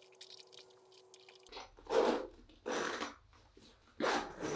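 The metal zip of a tightly packed Louis Vuitton Alma BB handbag being drawn closed in three short rasping strokes, starting about a second and a half in, after a few faint light clicks.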